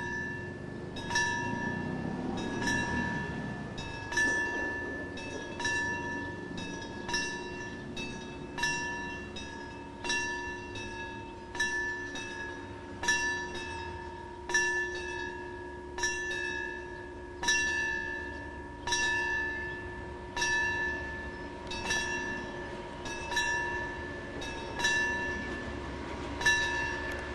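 Railway warning bell ringing with one stroke about every one and a half seconds, each stroke ringing on until the next, as an FS D.445 diesel locomotive pulls its passenger train into the station with a low engine hum underneath.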